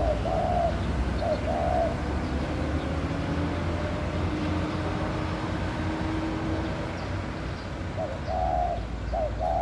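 Laughing dove courtship cooing: a phrase of soft short and longer coo notes, then a pause of several seconds, then the phrase starting again near the end. A steady low rumble sits underneath.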